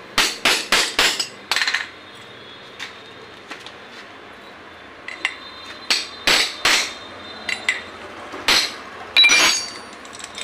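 A steel spanner knocking down around a moped front-fork tube to drive the oil seal into the outer tube, each blow a sharp metallic knock. A quick run of about five knocks opens, then more knocks follow in small groups further on.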